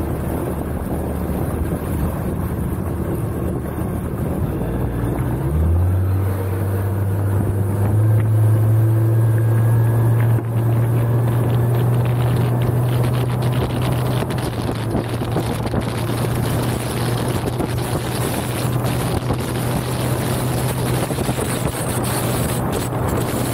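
Suzuki 140 hp outboard motor pushing a speedboat: about five seconds in the engine note rises as it is throttled up, then holds steady at speed. Heavy wind buffets the microphone throughout.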